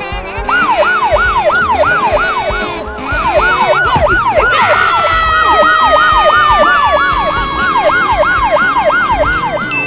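Police-car siren in a fast yelp, the pitch swooping up and down about three times a second. From about halfway a second, steadier siren tone slides slowly down in pitch beneath it.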